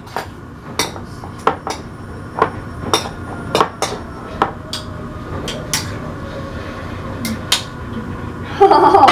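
Kitchen dishes and utensils clattering as plates and cutlery are handled at a counter: irregular sharp knocks and clicks, a few a second. Near the end a short, loud burst of a voice cuts in.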